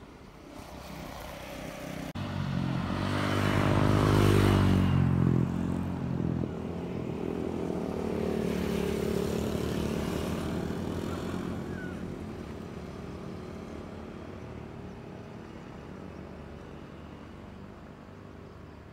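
A motor vehicle passing by, recorded on a smartphone microphone. Its engine note builds to a peak about four seconds in and drops away, swells again around nine to ten seconds, then fades.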